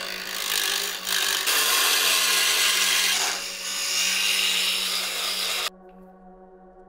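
Turning chisel cutting into a wooden dowel spinning on a 250 W mini wood lathe: a loud, steady, noisy scrape that eases briefly twice, then cuts off suddenly near the end.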